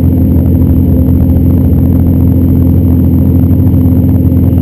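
Lexus drift car's engine idling, loud and steady at an even pitch, heard from inside its stripped, roll-caged cabin.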